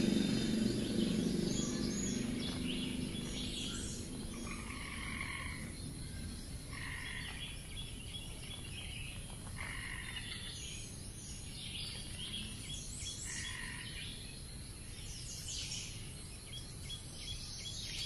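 Forest ambience with birds chirping and calling throughout, and a louder call repeated four times, every two to three seconds. Low rustling noise fades away over the first few seconds.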